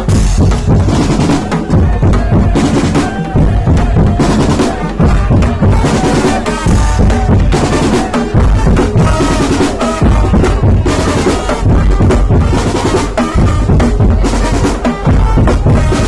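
Tong-tong percussion ensemble playing a loud, dense, driving rhythm of drums and knocking wooden percussion.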